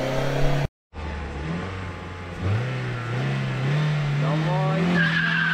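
An Opel Astra G's 1.6-litre 16-valve four-cylinder petrol engine is revved up and held at high revs for a standing-start launch. Near the end the tyres squeal with a steady high whistle as the car sets off.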